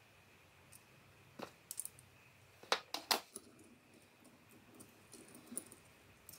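Scattered small clicks and taps from hands handling a digital caliper and small metal parts, loudest as a quick run of three clicks about three seconds in, with light rattling near the end.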